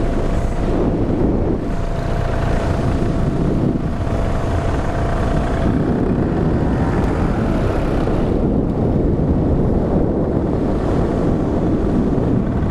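Engine and propeller of an open ultralight aircraft running steadily in flight, a constant drone under heavy wind buffeting on the microphone.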